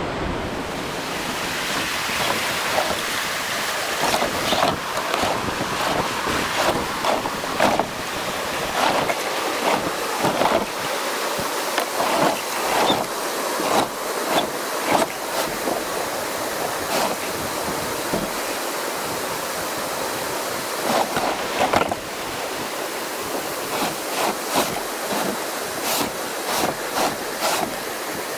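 Rushing river water over rapids, a steady loud wash, with irregular splashes coming and going through most of it.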